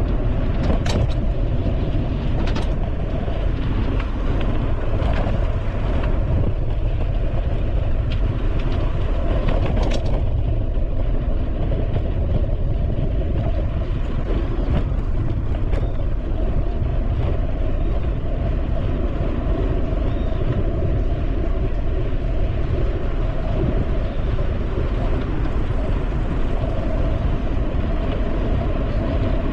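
Steady rushing wind and rolling noise from a bicycle riding along a paved bike path, heavy in the low end, with a few sharp clicks or rattles in the first ten seconds.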